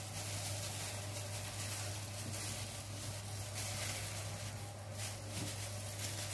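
Faint rustling and crinkling of disposable plastic gloves as hands pull apart onion rings and lay them in a baking dish, over a steady low hum and hiss.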